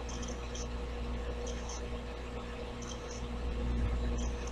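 Room tone: a steady low electrical hum and hiss, with faint short high blips every second or so.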